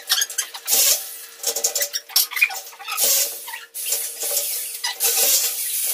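Steel ceiling furring being handled and fitted overhead: a string of short metallic clinks and rasping scrapes, some lasting about half a second, over a faint steady hum.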